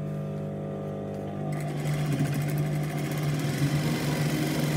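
Brother industrial sewing machine stitching: about a second and a half in it starts running with a fast, even needle rattle that keeps going to the end.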